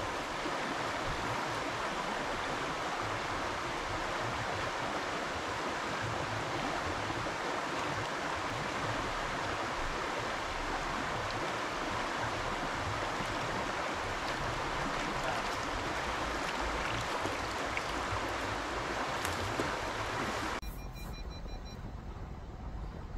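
Shallow, fast river rushing over a stony riffle, a steady hiss of running water. About 20 seconds in it cuts off suddenly to a much quieter low rumble inside a car.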